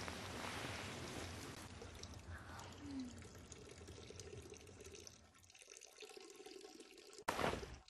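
Running water with a steady hiss, fading out about five seconds in. A short, sudden rush of noise follows near the end.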